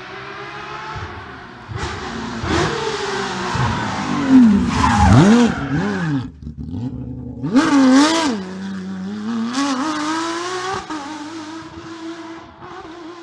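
Porsche 997 GT3 rally car's flat-six engine passing at speed: the pitch swoops down and up in quick throttle blips as it brakes and shifts down, then it accelerates away with a rising note and fades into the distance near the end.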